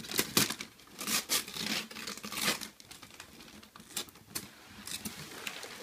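Gift wrapping paper being torn and crinkled as a present is unwrapped: several short rips in the first two and a half seconds, then softer rustling with one more brief rip about four seconds in.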